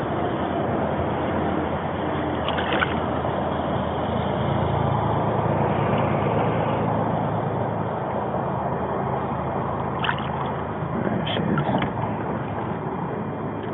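Steady hum of a boat engine on the lake with water sloshing, and a few brief clicks or knocks about three seconds in and again near the end.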